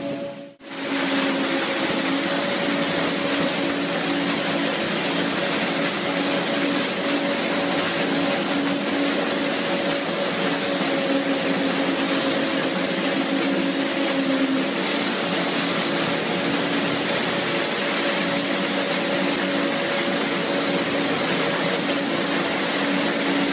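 Steady rush of water and small fish pouring from a pipe into a ship's fish tank, over a steady low machinery hum.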